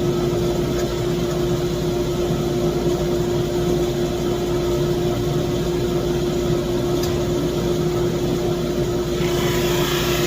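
SuperMax 25-50 open-end drum sander running steadily with a constant hum. Near the end a brighter hiss joins in.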